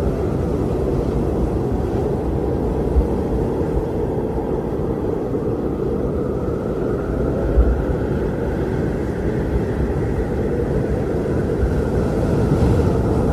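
Strong wind blowing steadily: a deep, rushing rumble with a faint howling tone that slowly dips and rises in pitch. A couple of brief low buffets come about three and seven and a half seconds in.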